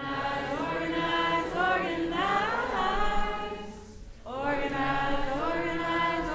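A group of people singing together: one sung phrase, a short break about four seconds in, then another phrase begins.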